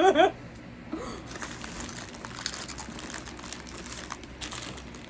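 Plastic snack packet crinkling and rustling in the hands, an irregular crackle that goes on after a voice trails off at the very start.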